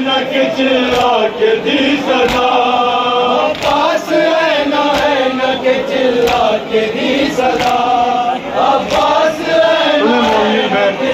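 Men chanting a nauha, an Urdu mourning lament, together. Hands slap on chests in matam at a steady beat under the singing.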